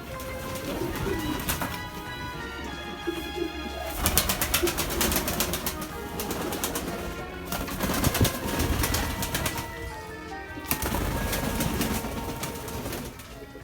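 Nikolaev pigeons cooing repeatedly, over background music.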